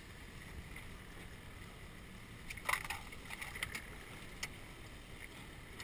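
Steady low rumble of a small boat running with its outboard motor in choppy water, with a few short sharp clicks and splashes about halfway through.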